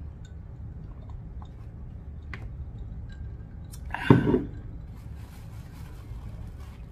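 A woman drinking from a glass mug, with small mouth and swallowing clicks over a low steady hum, then one short loud vocal sound from her about four seconds in.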